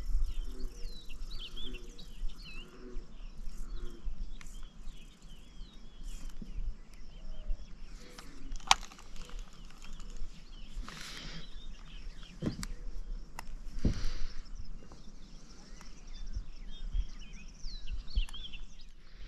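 Birds chirping in many short, quick calls over a low steady rumble. A few sharp clicks and brief rustles break in, the clearest click about nine seconds in.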